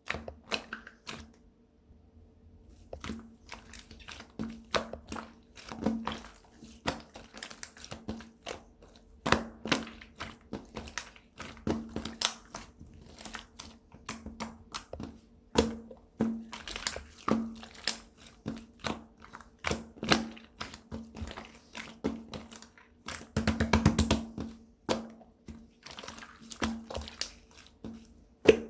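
Slime being squeezed and poked by hand, giving irregular squishing clicks and pops, with a quick run of rapid pops a little over twenty seconds in.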